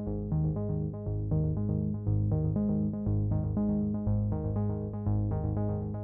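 Background electronic synthesizer music: quick repeated keyboard-like notes over a bass line that steps between notes.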